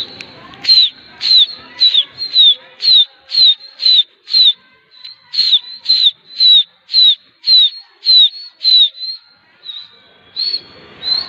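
A person whistling a fast run of short, sharply falling notes, about two a second, with a brief break about five seconds in and weaker notes near the end. It is a pigeon flyer's whistle, urging the circling flock to fly on.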